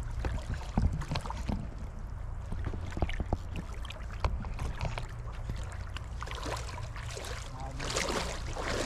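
Shallow sea water sloshing and splashing around wading legs, with scattered small clicks and a steady wind rumble on the microphone; the splashing grows louder near the end.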